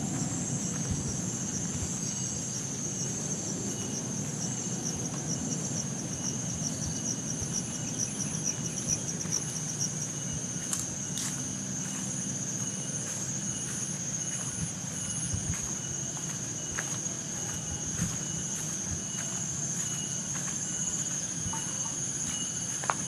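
Insects chirping in a continuous high-pitched trill that pulses rapidly, with fainter, higher chirps coming and going over it.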